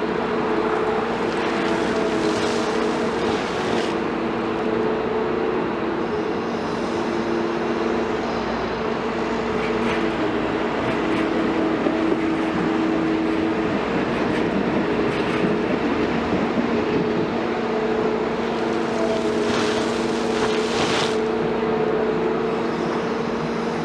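Large crawler excavator's diesel engine running at working revs, a steady drone, with brief hissing surges about two seconds in and again near the end.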